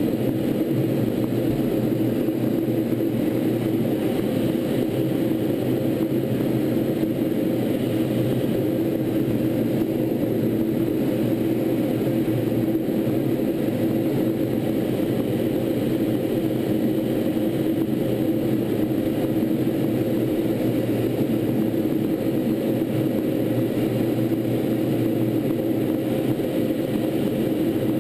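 Steady, unchanging drone of a T-38 Talon jet in flight: its twin General Electric J85 turbojets and the rush of air, with a few constant hum tones in it.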